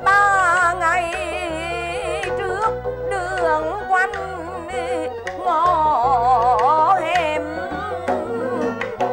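A woman singing in Vietnamese traditional stage-opera style, her voice wavering with a wide vibrato, over instrumental accompaniment with a steady held note and a stepping bass line.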